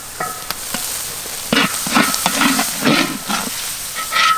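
Curry paste sizzling in hot oil in a large wok, with irregular scrapes and knocks as paste is scraped from a container into the pan. Short high-pitched calls sound near the start and again near the end.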